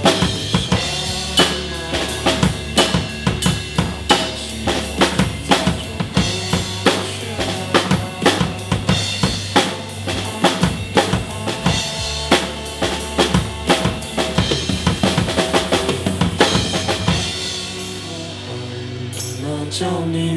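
Acoustic drum kit played hard and fast over a rock song's instrumental backing track, with dense kick, snare and rimshot hits. About seventeen seconds in, the drumming thins out to a few hits and the guitar-and-bass backing carries on.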